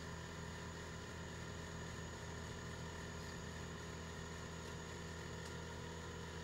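A motor running at a faint, steady hum with no change in speed.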